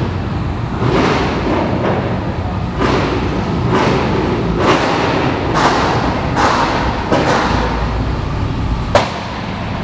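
Low rumble of a car rolling slowly up, under a series of sharp thuds about once a second, the last and loudest near the end.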